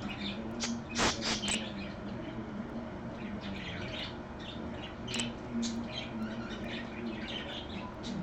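Pet budgerigar (parakeet) chirping and chattering in short, quick bursts, loudest about a second in.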